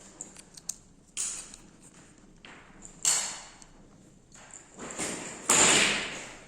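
Hands handling a motion detector and its mounting parts: a few short taps and clicks with brief rustling scrapes. The loudest is a longer scrape about five and a half seconds in.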